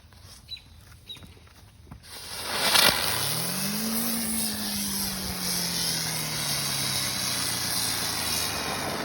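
Handheld firework on a stick catching about two seconds in and burning with a loud, steady hiss. A low hum rises and then slowly sinks in pitch under the hiss.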